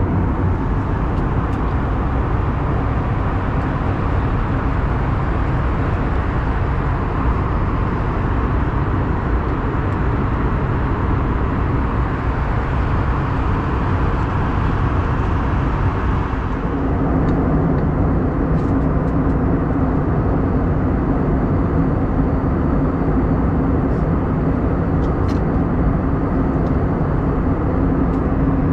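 Steady cabin noise of an Airbus A321neo in cruise: a loud even rush with a low steady hum. About 17 seconds in the sound changes abruptly, with less hiss and a stronger hum.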